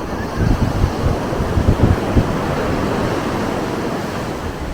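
Ocean surf washing ashore with wind buffeting the microphone, and a cluster of low thumps in the first half.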